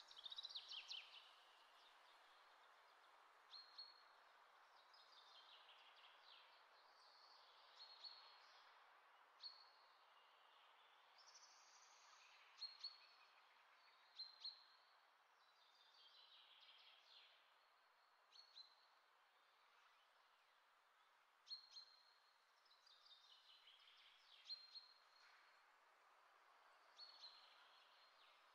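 Near silence with faint birds chirping: short high calls and quick falling trills every second or two, over a low steady hiss.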